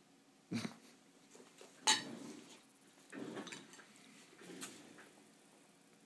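A cat playing on top of a clothes dryer: four short bumps and scrabbles against the machine, the sharpest a knock about two seconds in.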